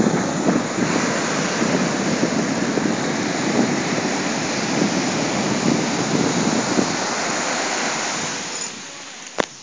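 Ocean surf breaking and washing up a sandy beach, a steady rushing noise with wind buffeting the microphone; it drops away about a second before the end, followed by a single sharp click.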